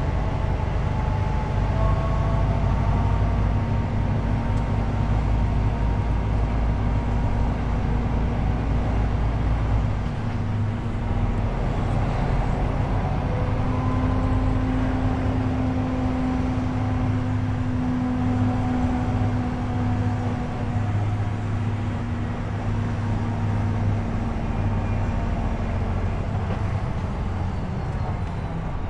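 DAF truck's diesel engine running at low road speed, heard inside the cab with steady road and running noise; the engine note shifts about ten seconds in.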